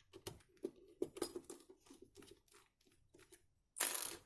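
Small plastic clicks and light rattles from a cheap power strip being handled and taken apart by hand, with one short scraping rasp near the end.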